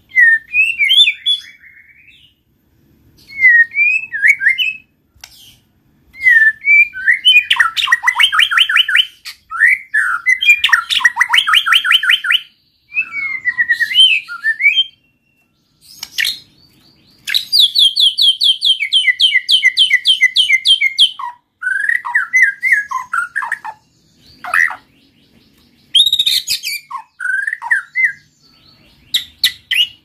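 White-rumped shama singing vigorously in separate phrases: whistled slurring notes and long, fast trills of rapidly repeated notes, with short pauses between the phrases.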